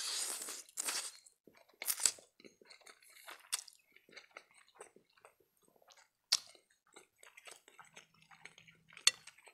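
Mouth sounds of spaghetti eating: a slurp as a forkful of spaghetti is sucked in, then chewing with wet smacks and small clicks. Two sharp clicks come later.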